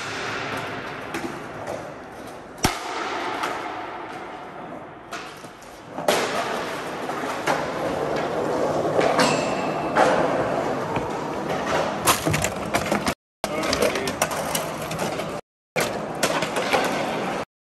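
Skateboard wheels rolling on a concrete garage floor, with several sharp clacks of a board hitting the ground.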